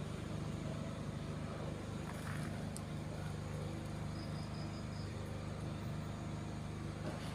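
A steady low droning hum with a fast even pulse, the unexplained sound heard from inside an abandoned empty house.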